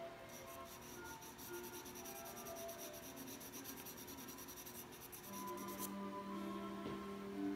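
A small soft brush flicking rapidly across toned drawing paper, blending charcoal in fast, even scratchy strokes, several a second, that stop about six seconds in. Soft background music with held notes underneath.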